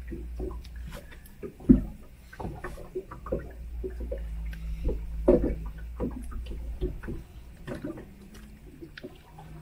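Irregular knocks, taps and rustles as a small zander and the tackle are handled in an inflatable PVC boat while the fish is being unhooked. One sharp knock comes a little under two seconds in, over a low steady rumble.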